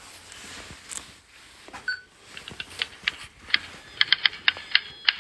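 Keys being typed: a few scattered clacks, then rapid, steady clacking from about four seconds in.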